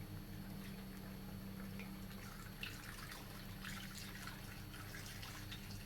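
Coolant being poured through a funnel into a car's cooling system, a faint running and dripping of liquid with small scattered splashes, over a steady low hum.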